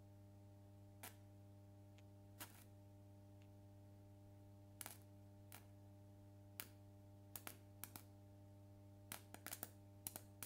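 Faint sharp snaps of a small 50 V DC arc as a graphite rod touches a grounded metal plate, about fifteen irregular cracks that bunch up near the end, over the steady low hum of the mains transformer feeding the rectified supply.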